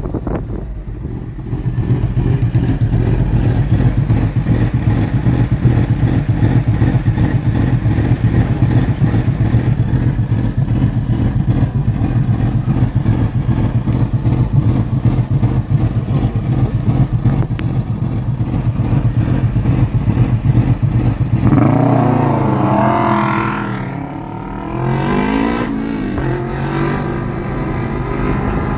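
Car engine running steadily with a fast, pulsing exhaust note. About 21 seconds in, its pitch rises and falls several times, then settles back to a steady run.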